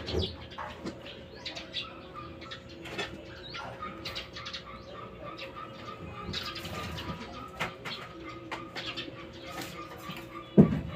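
Birds calling in the background, with repeated short chirps, over a faint steady hum. A single sharp knock comes near the end.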